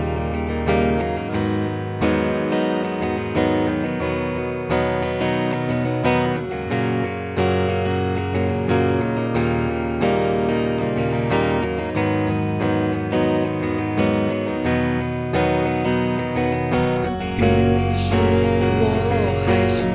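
Band music with strummed guitar chords over bass in an instrumental passage; near the end the low end grows fuller and cymbal crashes come in.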